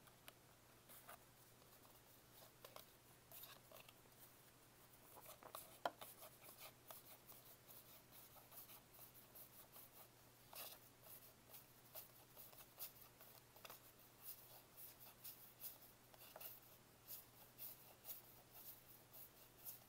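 A stack of Gypsy Queen baseball trading cards being flicked through one at a time, card sliding over card from hand to hand. It makes faint, quick papery clicks and rustles that come faster and more evenly in the second half, with one sharper snap about six seconds in.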